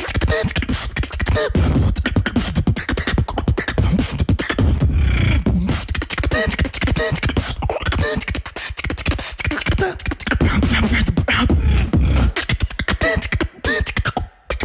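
Solo beatboxing: fast vocal percussion with deep bass pulses and curling, gliding pitched vocal sounds layered over the beat, briefly dropping out twice near the end.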